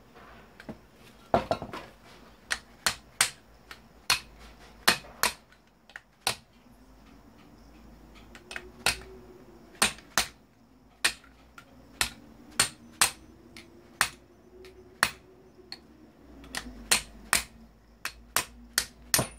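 Hammer blows on metal, about thirty sharp strikes at an irregular pace with a short pause about a third of the way through, knocking at a stuck part of a dismantled foot massager to drive it out.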